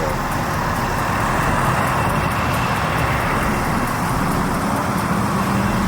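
Restored 1991 Cadillac Fleetwood's engine running as the car is driven out: a steady rumble under outdoor noise, with a low hum that grows steadier in the second half.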